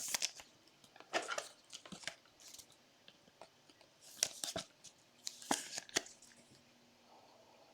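Trading cards and their plastic packaging being handled: short bursts of rustling and crinkling, about five clusters, then quiet.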